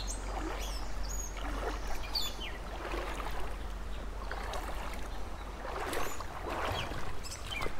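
Shallow creek water sloshing and swirling around a wader's legs, with birds chirping in short, sweeping calls several times.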